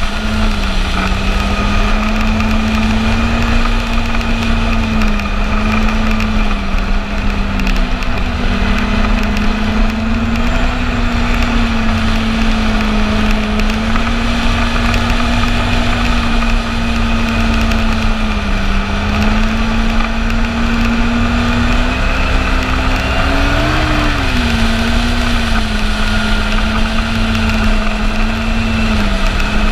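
Yamaha Apex snowmobile's four-stroke four-cylinder engine running at a steady cruising speed, over the rumble of the moving sled. The engine note drifts slightly up and down, with a brief rise in pitch about three-quarters of the way through.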